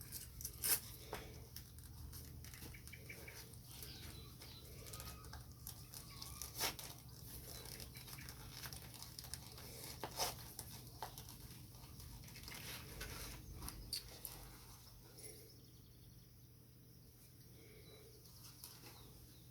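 Faint rustling of fabric and leather with scattered light clicks and ticks as a beaded war skirt and leather belt are fastened on, over a low steady hum; the handling quietens in the last few seconds.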